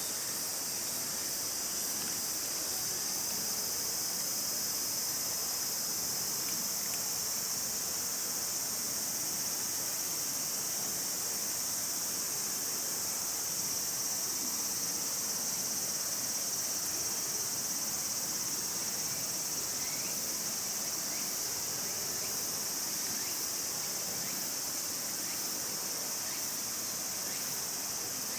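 Steady chorus of insects, a dense high-pitched buzzing that holds without a break.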